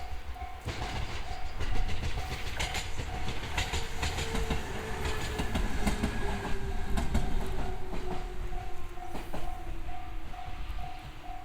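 A JR 213 series electric train passing over a level crossing, its wheels clicking in clusters over the rail joints, with a hum sliding slowly down in pitch as it slows into the next station. The JR-standard electronic crossing alarm rings in quick repeated tones, about three a second, throughout.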